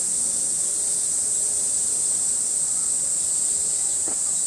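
Steady, high-pitched drone of a summer cicada chorus, holding at one level without a break.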